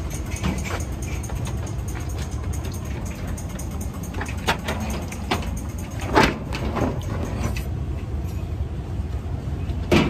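Steady low rumble of city traffic, with scattered short clicks and knocks, the loudest about six seconds in.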